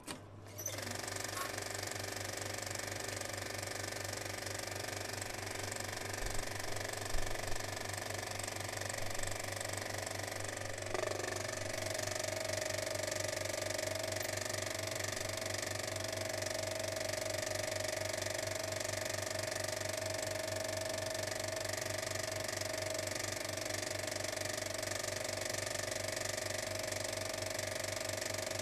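A steady machine-like drone: a low hum under several held tones. A stronger, higher tone comes in about eleven seconds in and holds.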